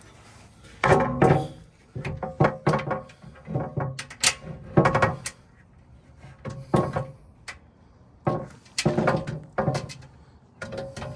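Background music with irregular percussive hits and pitched notes.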